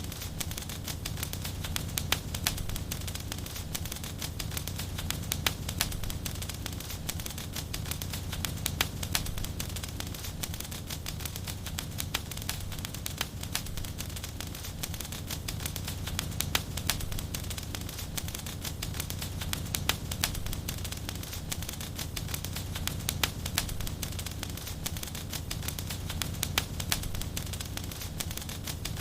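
Wood fire crackling in a fireplace: irregular sharp pops and snaps over a steady low rumble of flames.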